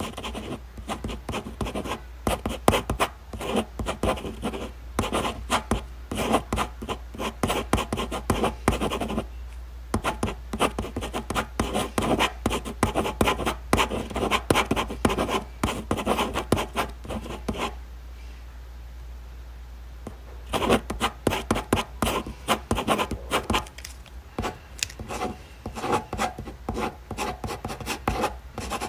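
Ballpoint pen writing on paper in quick, scratchy strokes. The writing stops briefly about a third of the way in and again, for a little longer, about two-thirds in.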